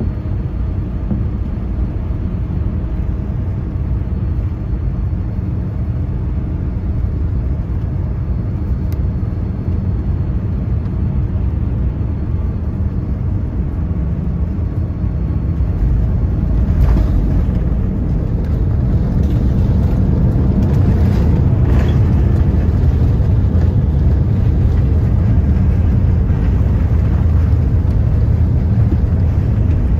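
Cabin noise of a Boeing 787-9 airliner landing: a steady low rumble of air and engines on final approach. About halfway through it touches down and the rumble grows louder and fuller as it rolls down the runway, with a couple of faint knocks.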